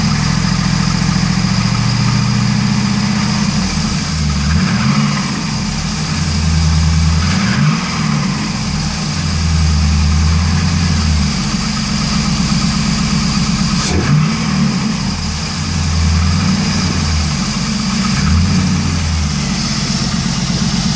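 LS1 5.7-litre V8 of a 2001 Trans Am WS6 running, with a few short rises in revs and a single sharp click about two-thirds of the way through. It carries the engine noise whose cause is in doubt: piston slap, a bent pushrod or lifter tick.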